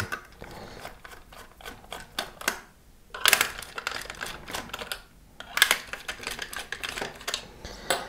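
Small screwdriver loosening screws in the plastic case of a FlySky GT3C radio-control transmitter: a run of light clicks and scrapes, busiest about three seconds in and again around six seconds.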